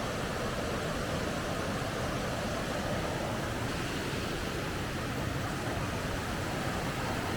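Mountain valley stream rushing after overnight rain: a steady, even rush of water.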